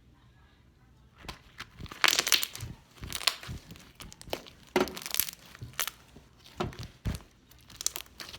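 Slime being squeezed and played with by hand: a string of irregular, sharp crackling noises that starts about a second in.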